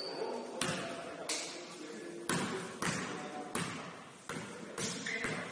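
Basketball being dribbled on a gym floor: about eight sharp bounces at an uneven pace, each ringing briefly in the hall.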